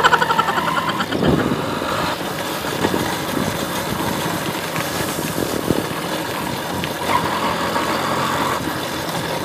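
TVS XL100 moped's small single-cylinder engine running steadily as it is ridden, under a continuous rush of road noise. A brief sharp sound is heard right at the start.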